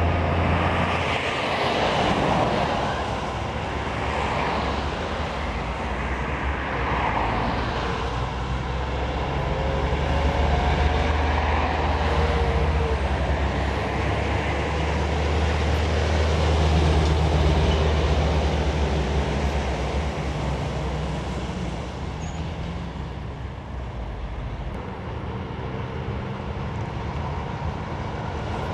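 Heavy diesel articulated lorries, among them Volvo tractor units, passing close one after another: a deep engine drone with tyre and road noise that swells and fades with each truck.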